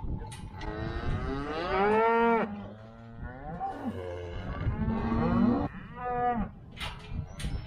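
Black Angus cattle mooing in three calls: two long calls, then a short one about six seconds in, while cows and calves are being sorted apart.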